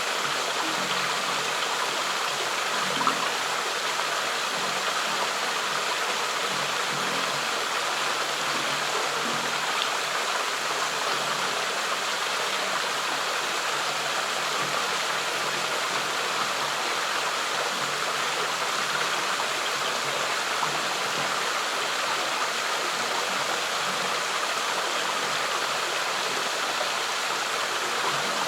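Flowing stream water running with a steady, even rush.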